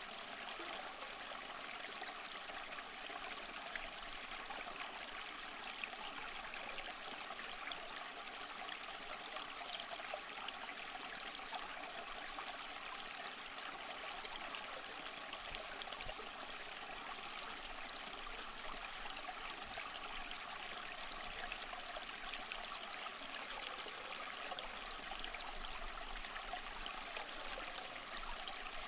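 Small stream flowing steadily, a continuous even rush of water with fine trickling and splashing.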